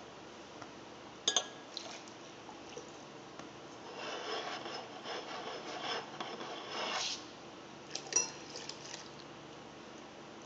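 Two wine glasses of rinse water swirled with their bases sliding on a board: about three seconds of rubbing and sloshing from around four seconds in, with a few sharp clinks before and after.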